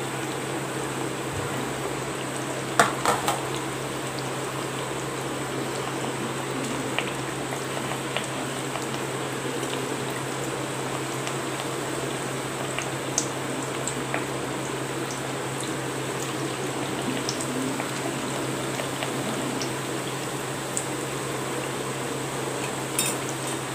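Rice-flour thattai discs deep-frying in oil in an aluminium kadai on medium flame: a steady bubbling sizzle, with a few sharp clicks about three seconds in and again near the end.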